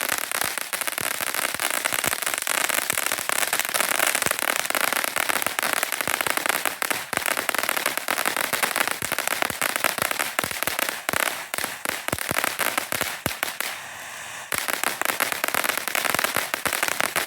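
Phantom Fireworks Ultimate Tank novelty firework spraying sparks: a steady hiss packed with rapid crackling pops, easing off briefly about fourteen seconds in before picking up again.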